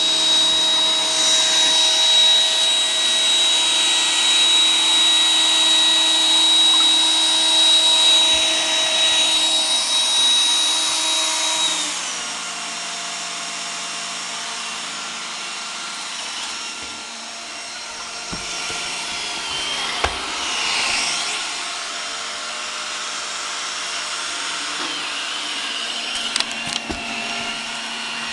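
iRobot Roomba 980 robot vacuum running, a steady motor whine with several held tones. About twelve seconds in the motor drops to a lower, quieter pitch, and it climbs back up at the end, with a few light knocks shortly before.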